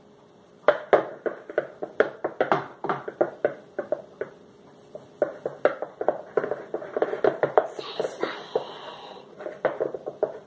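Long plastic spoon stirring a thick glue-and-shaving-cream slime mix in a clear bowl, knocking against the bowl's sides in a quick, irregular run of taps that starts about a second in.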